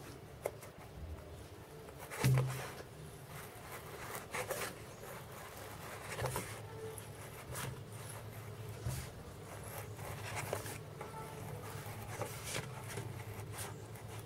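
Small scissors snipping through a sheet of EVA craft foam, cutting around a moulded shape: a run of short, irregular snips and rustles every second or two, the loudest about two seconds in.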